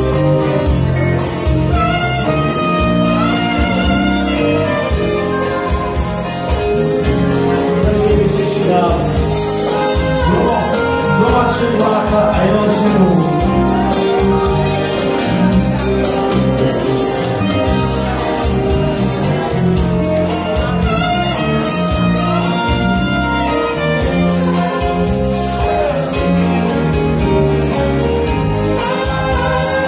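Live band playing Romani party music, a saxophone leading over electric guitar, keyboard and a steady beat.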